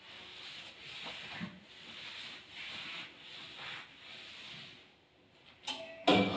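Heavy upholstered sofa seats being pushed across a wooden floor, making repeated scraping strokes about a second long each. A sharp knock comes near the end.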